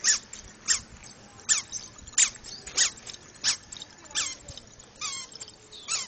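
A toddler's squeaky shoes chirping with each step, a short high squeak about every two-thirds of a second.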